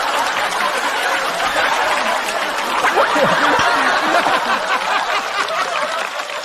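Studio audience laughing after a punchline, with scattered clapping, dying down near the end.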